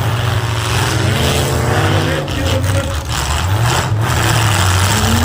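Several demolition derby cars' engines running and revving hard at once, their pitches rising and falling over one another.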